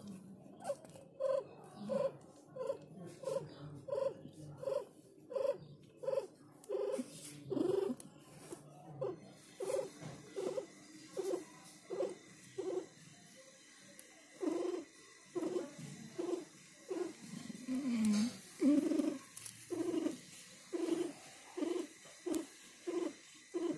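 Mother cat in labour purring in a steady rhythm of pulses, about one and a half a second, with one louder, lower, falling moan about three-quarters of the way through.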